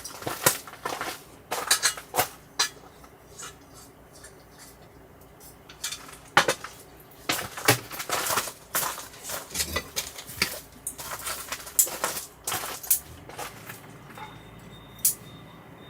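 Metal cookware and utensils clinking and knocking, irregularly and in clusters, as they are handled.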